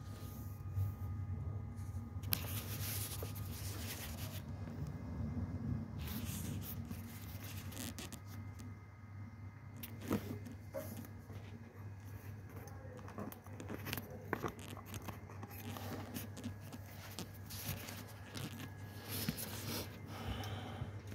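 Faint scrapes and scattered small clicks of hand work at a forklift's hydraulic spool-valve block, over a steady low hum.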